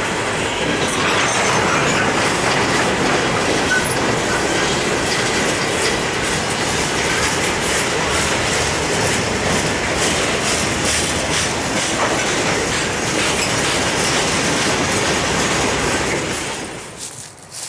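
Loaded and empty freight cars (gondolas, boxcars, a tank car) rolling past at close range, steel wheels clattering steadily over the rails with many short clicks. The sound drops away suddenly near the end.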